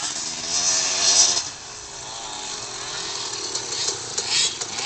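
2002 KTM SX 250 two-stroke dirt bike engine revving as the bike rides through loose sand, the pitch rising and falling with the throttle. It is loudest about a second in and again near the end, as the bike comes close.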